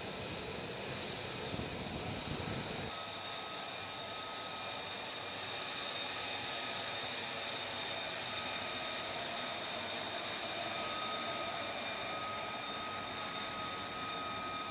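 F-35B's single jet engine running, a rushing noise with a steady high-pitched whine. A heavier low rumble fills the first three seconds, then stops abruptly and leaves the whine.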